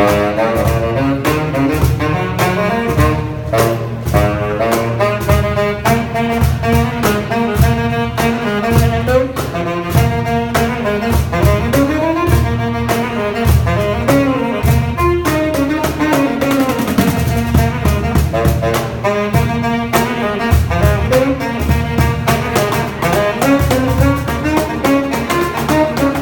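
Saxophone playing a jazzy melody over a steady beat of hand strikes on a cajón, with deep bass thumps under it.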